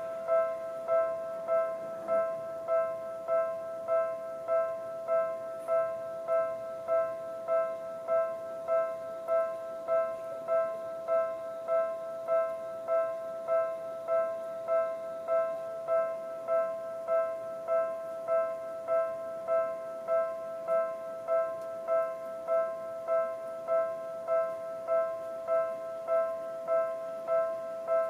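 Japanese railway level-crossing warning bell ringing steadily, a bell-like electronic tone repeating about three times every two seconds, signalling an approaching train.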